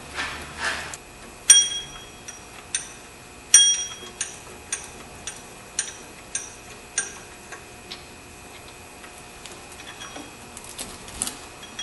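Ratchet wrench on a long extension clicking as a bolt is backed out: sharp metallic clicks, each ringing briefly, about two a second. They are loudest in the first few seconds and die away after about eight seconds. A short rustle comes at the start and a few small clicks near the end.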